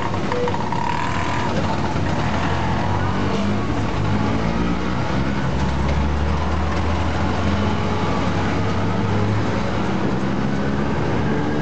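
Three-wheeler auto-rickshaw (tuk-tuk) ride heard from inside the open passenger cab: the small engine runs steadily, its note rising and falling as it changes speed, over constant road and traffic noise.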